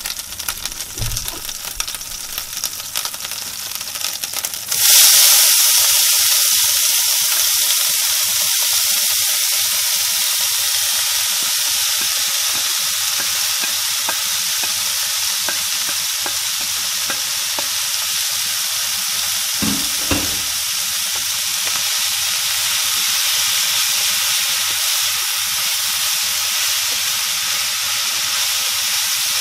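Chopped vegetables (shredded carrots, bell peppers) hitting hot oil in a stainless steel pan: light crackling, then a sudden loud sizzle about five seconds in that keeps going steadily while the vegetables are stirred and scraped in with a spatula.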